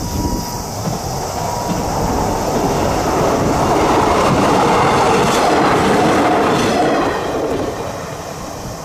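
A train crossing a railway bridge: wheels clattering over the rails, swelling to its loudest about four to seven seconds in, then fading.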